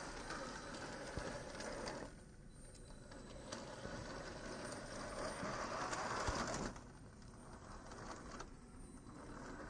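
Traxxas TRX-4 RC crawler driving over a gritty rock slab, its motor and tyre noise louder for the first couple of seconds and again through the middle, then dropping off.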